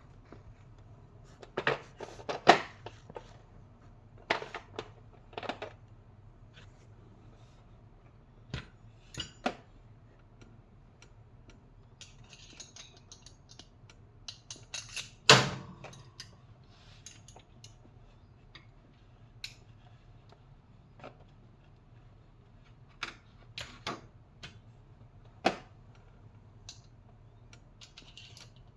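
Hand tools being handled: metal wrenches and screwdrivers clinking and clicking against each other now and then, with the sharpest clinks about two and a half seconds in and about fifteen seconds in, over a faint steady low hum.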